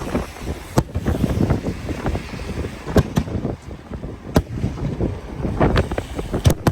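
Fireworks going off: a string of sharp bangs, four of them standing out clearly, over a steady rumble of wind on the microphone.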